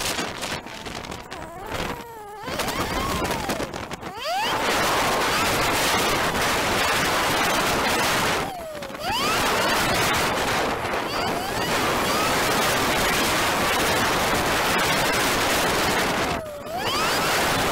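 Heavy wind rush buffeting the microphone of a camera mounted on a moving motorcycle, with the engine note gliding down and back up in pitch. The rush drops away briefly twice, once near the middle and once near the end.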